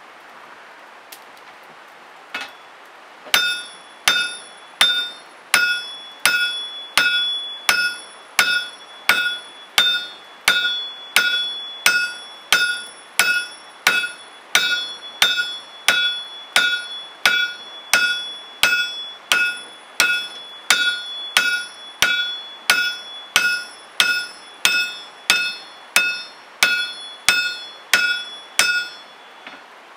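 Hammer striking metal in a steady rhythm, about two blows a second for some 25 seconds, each blow ringing at the same pitch; one lighter tap comes just before the hammering starts.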